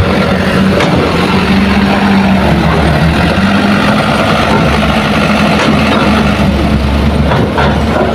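Heavy diesel engines running steadily, a dump truck idling close by with an excavator working nearby, with a few brief knocks: one about a second in and two near the end.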